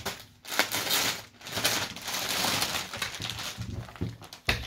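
Cloth of a folded suit set rustling as it is handled and unfolded on a table, in irregular bursts, with a sharp knock about half a second before the end.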